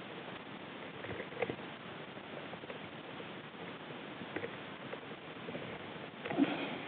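Handling noise of a shotgun with a camera mounted on it as it is swung and moved: scattered light knocks and rustles over a steady hiss, with a louder clatter about six seconds in.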